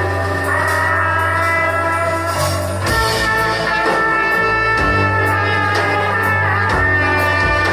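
A rock band playing live, with electric guitar over a held bass note and drum hits.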